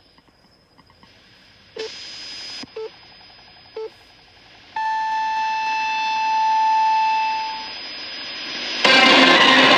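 NHK World Radio Japan's time signal received on a Tecsun shortwave radio. Three short low pips come a second apart, then a long higher tone of about three seconds marks the top of the hour, swelling and fading as the shortwave signal drifts. Near the end the broadcast comes up much louder, with static.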